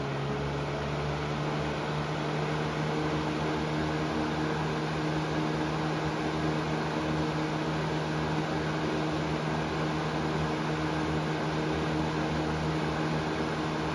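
Air King 9723 20-inch box fan running on its low speed: a steady rush of air over a motor hum, still coming up to speed in the first second or two. On the meter it reads about 69 to 70 decibels at 10 to 12 inches.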